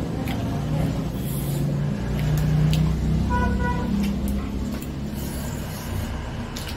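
Metal spoons clicking against ceramic soup bowls while eating, over a steady low rumble that swells about two and a half seconds in. A short beep sounds about three and a half seconds in.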